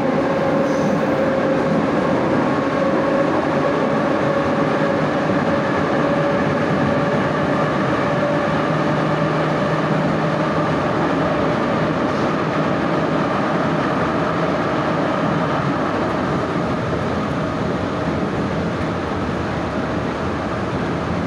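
Moscow metro train running at speed, heard from inside the car: a steady rolling rumble of wheels on track with a constant hum of held tones that eases slightly toward the end.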